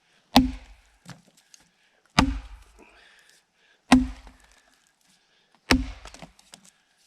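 Axe splitting dry balsam fir firewood: four heavy strikes about two seconds apart, each a sharp crack with a deep thud, followed by a short clatter.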